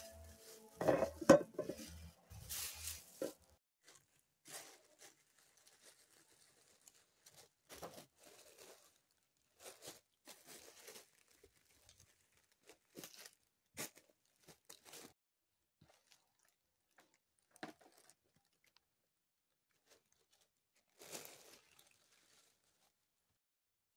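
Plastic shopping bags rustling and crinkling in short, scattered bursts as items are handled, with quiet gaps between.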